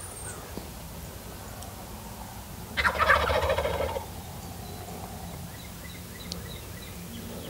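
A wild turkey gobbler gobbles once, about three seconds in: a single loud gobble lasting just over a second.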